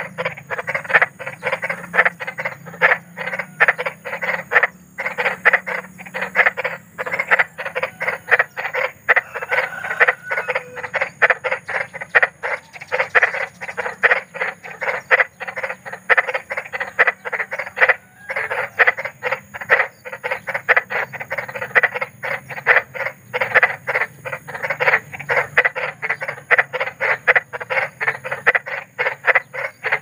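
Frogs croaking in a rapid, continuous run of short rattling croaks, about four a second, broken by a few brief pauses.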